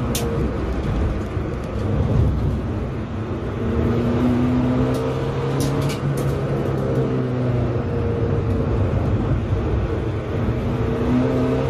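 SEAT Ibiza TDI's turbodiesel engine running as the car is driven round a track, heard from inside the cabin along with tyre and road noise. It eases off briefly about three seconds in, then picks up again. A few sharp clicks come right at the start and again around six seconds in.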